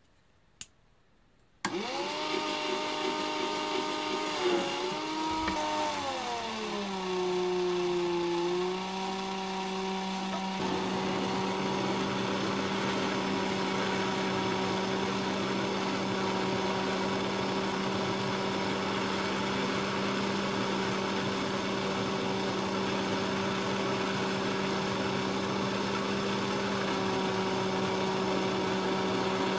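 A small electric motor starts up about two seconds in over a steady hiss. Its pitch drops a few seconds later, then it runs at a steady speed.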